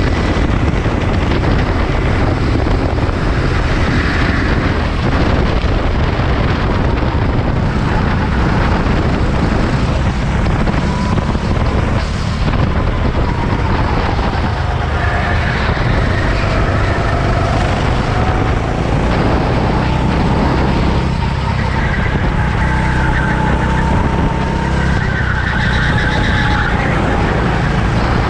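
Racing engines running on a circuit over a steady low rumble, their pitch rising and falling slowly as they accelerate, brake and pass.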